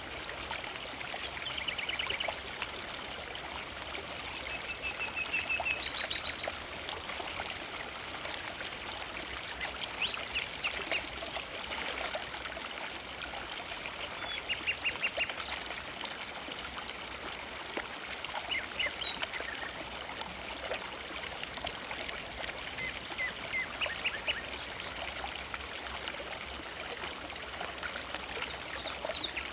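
River water flowing steadily over stones. Several times, birds call in short, rapid trills above it.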